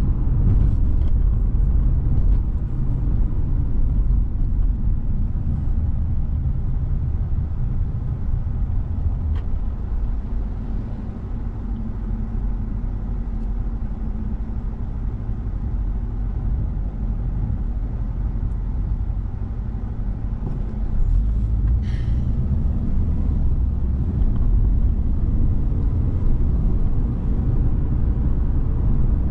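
Steady low rumble of a car's engine and tyres on the road, heard from inside the cabin while driving. It eases off through the middle as the car slows in traffic, then builds again as it speeds up. A brief sharp sound comes about two-thirds of the way through.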